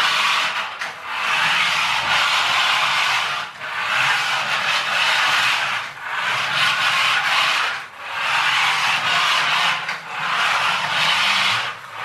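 Small electric motor and plastic gearbox of a radio-control conversion of a toy Chevrolet Silverado truck, whirring with a raspy hiss as it drives across a hard floor, its wheels rubbing on the surface. It runs in about six spurts of one to two seconds with brief breaks as the throttle is pulsed.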